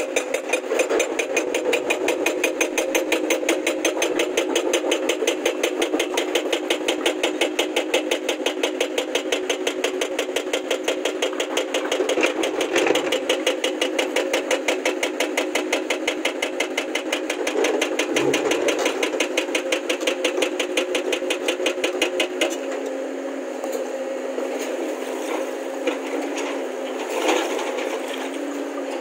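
Diesel engine of heavy earthmoving machinery running with a steady rhythmic chug of about three beats a second. The chugging cuts off a little over twenty seconds in, leaving a quieter hum broken by a few knocks.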